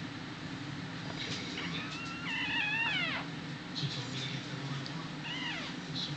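Newborn miniature dachshund puppies crying with high, falling, mew-like squeals: one long cry in the first half and a shorter one near the end, over a steady low hum.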